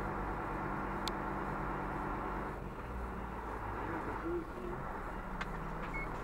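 Fire truck's diesel engine running steadily, its note shifting about two and a half seconds in, with a couple of faint clicks.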